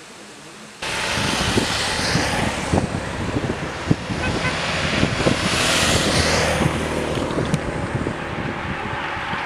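Vehicles passing close by on the road. A rough rushing noise starts abruptly about a second in and swells twice as two of them go past.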